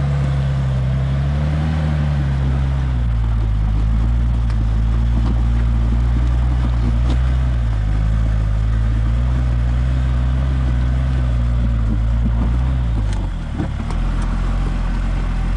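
Nissan Patrol 4WD engine pulling at low revs as the truck crawls over rocks up a steep slope, the pitch wavering slightly with the throttle and easing off near the end.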